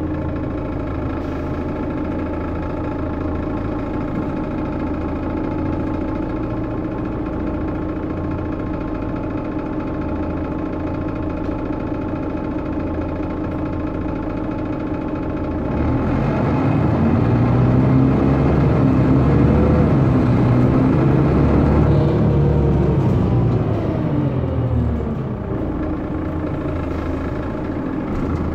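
Mercedes-Benz Citaro O530G articulated bus's diesel engine idling steadily. About halfway through it speeds up, getting louder with its pitch rising, then its pitch falls over several seconds before it settles back to idle.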